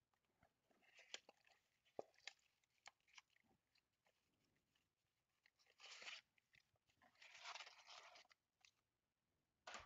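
Plastic shrink wrap and cardboard packaging of a trading-card box crinkling and crackling as it is opened by hand: scattered faint clicks, then two longer rustles about six and seven and a half seconds in.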